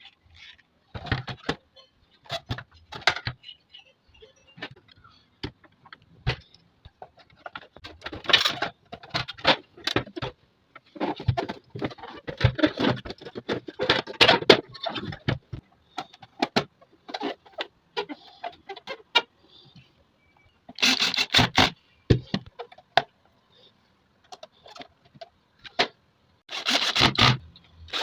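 Irregular clicks, knocks and scrapes of metal sewing-machine parts and tools being handled during cleaning and maintenance, with two longer, denser rattling bursts in the second half.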